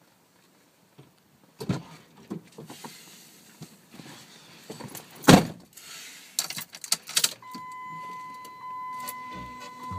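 A person climbing into a Jeep Liberty's driver's seat: knocks and rustles, then the door shutting with a heavy thump about five seconds in. Keys jangle and click into the ignition, a steady electronic warning tone from the dashboard comes on at about seven and a half seconds, and low pulsing from the engine cranking starts near the end.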